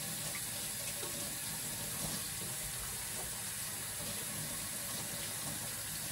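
Kitchen faucet running steadily into the sink.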